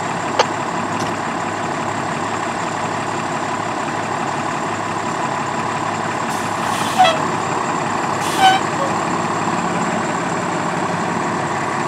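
Steady rumble of idling fire apparatus mixed with the burning of a fully involved box truck, with two short hisses about six and eight seconds in.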